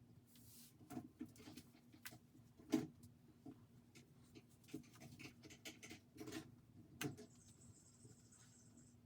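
Faint, irregular clicks and light taps over a low steady hum, with a faint hiss joining about seven seconds in.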